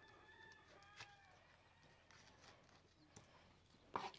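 Near silence, with faint bird calls in the first second or so. Near the end, a kitchen knife starts tapping sharply on a wooden cutting board as a güero chile is cut into strips.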